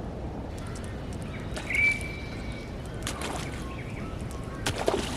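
Steady low wind and water noise, with a single whistled bird call about two seconds in that rises and then holds for about a second, and a few short sharp clicks later on.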